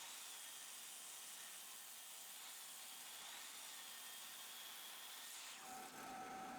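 Faint steady hiss, close to silence. Near the end a low hum with a few steady tones comes in.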